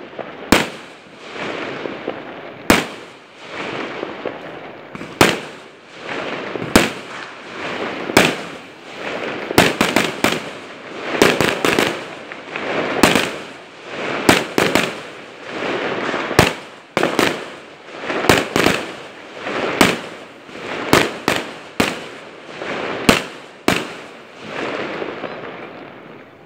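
Multi-shot skyshot aerial fireworks cake firing: a series of sharp bangs as shells burst overhead, about one every second or two with some quick clusters, and a hissing crackle between them. The bangs thin out and fade near the end.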